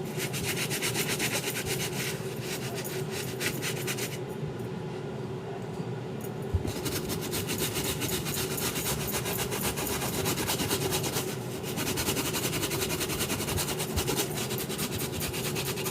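Rapid back-and-forth rubbing strokes worked by hand on a sneaker during restoration, a fast even rasping rhythm that stops for a couple of seconds about four seconds in and then resumes.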